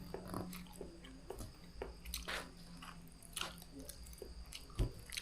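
Close-up mouth sounds of someone chewing and slurping soft, chewy noodles: scattered wet smacks and small clicks.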